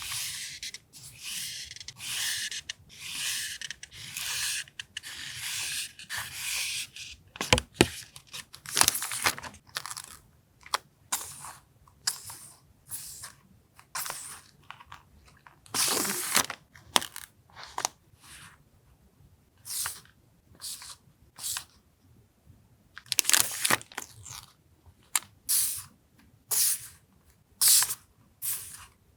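Paper and plastic stationery packaging being handled and unpacked by hand: a quick, regular run of rustling strokes for the first several seconds, then scattered short crinkles and crisp taps, with one sharper knock about eight seconds in.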